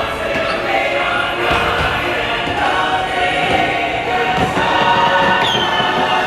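Upbeat ride soundtrack with a chorus singing, with a falling whistle-like glide near the end.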